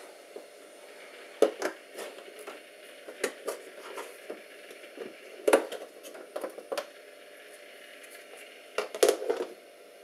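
Clear plastic tub and its lid being handled and opened: irregular clicks and knocks of plastic. The loudest come about a second and a half in, at about five and a half seconds, and in a cluster near the end.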